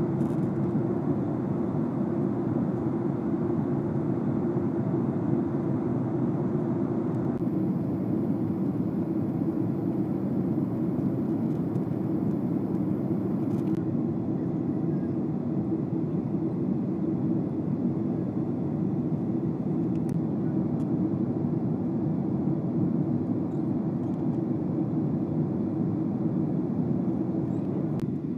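Steady cabin noise inside a jet airliner: an even, low rushing sound that holds unchanged throughout.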